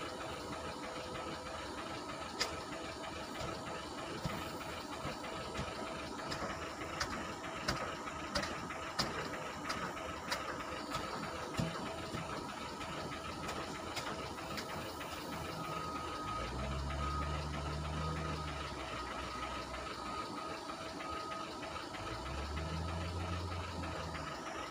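Heavy diesel engine of a wheel loader running steadily while it loads crushed stone chips into a tipper lorry, with scattered sharp clicks and rattles of stone in the first half. The low engine sound grows heavier twice in the second half.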